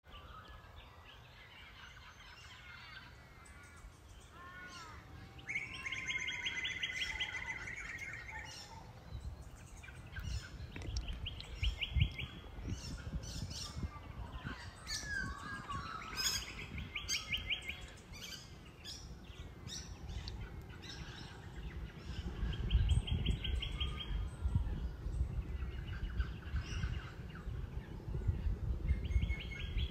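Birds calling in open bush: one bird repeats a fast, buzzy trill about every five seconds, with scattered chirps from others. A low rumble runs underneath, swelling about twelve seconds in and again over the last third.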